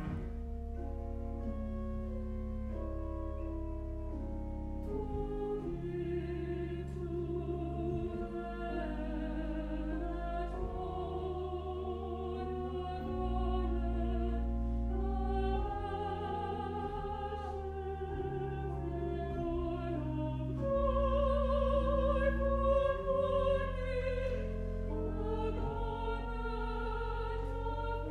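Pipe organ holding sustained chords with a low pedal bass, joined about five seconds in by a small mixed choir singing with vibrato; the singing swells louder about two-thirds of the way through.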